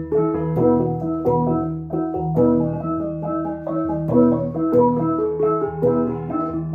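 A Central Highlands cồng chiêng gong set played: several tuned gongs struck in a steady interlocking rhythm, each note ringing on and overlapping the next.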